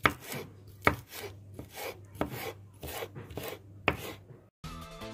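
Knife chopping sweet pepper, about three cuts a second. The chopping stops just before music comes in near the end.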